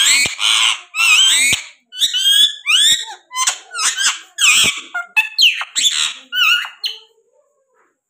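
Indian ringneck parakeet chattering: a fast run of high, sliding squawks and chirps, several a second, that stops about seven seconds in.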